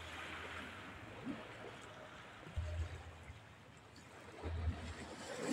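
Small waves washing onto a pebble beach as a steady hiss. Two brief low rumbles hit the microphone, about halfway through and again near the end.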